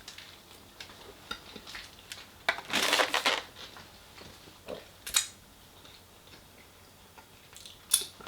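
Close-miked sounds of handling and eating food: a loud crunching rustle about three seconds in, then a couple of sharp clicks.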